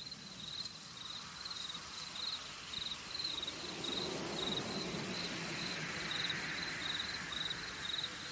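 A cricket chirping steadily, high-pitched pulsed chirps about twice a second, over a faint background hiss that fades in over the first couple of seconds.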